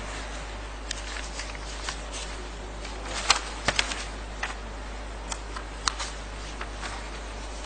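Sheets of paper being handled and sorted close to a microphone: scattered crisp rustles and sharp clicks, the loudest a little over three seconds in, over a steady low hum.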